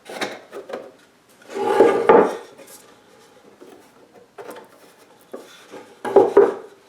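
Plexiglass panel being worked into place in a wooden box, rubbing and scraping against the wood in two short bursts, about two seconds in and again near the end, with a few light knocks at the start.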